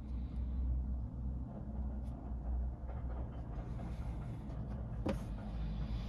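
Steady low background rumble, with faint rustles from a small leather lighter case being handled. There is one light tap about five seconds in as the case is set down on a cutting mat.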